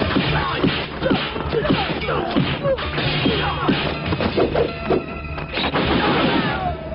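Martial arts film fight soundtrack: a rapid, dense run of punch, kick and weapon-hit sound effects with swishes, over steady dramatic music.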